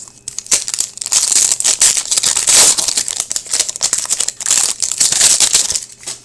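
Hockey card pack wrapper crinkling and tearing as it is opened and handled, a dense crackle that starts about half a second in and stops just before the end.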